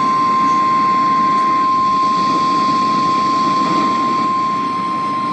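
NOAA Weather Radio's 1050 Hz warning alarm tone: one steady high-pitched tone over a hiss of radio static, the attention signal that comes before a tornado watch is read out.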